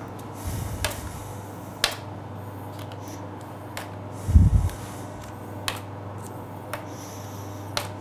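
Plastic scoring blade drawing lines across the glazed puff-pastry top of a galette des rois: about six light, sharp clicks, irregularly about a second apart, over a steady low hum, with a dull low thump about four and a half seconds in.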